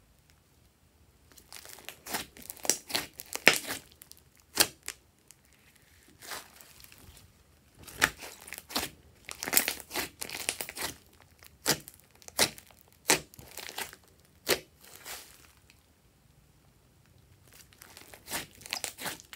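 Glossy slime being squeezed, stretched and pressed by hand, crackling and popping in irregular clusters of sharp clicks, with short quiet pauses between handlings.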